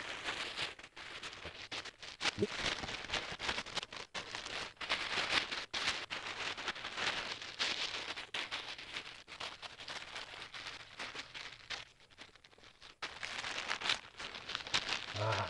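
Black plastic garbage bag crinkling and crackling as it is handled and pulled down over a dummy's head, in irregular rustling bursts with a short quieter lull near the end.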